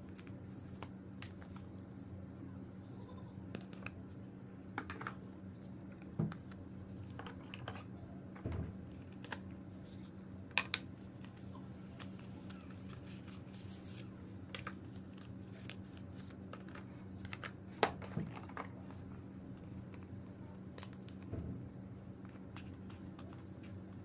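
Cardboard smartwatch boxes being handled and opened: scattered clicks, taps and light scrapes as box parts are slid apart and set down, over a steady low hum.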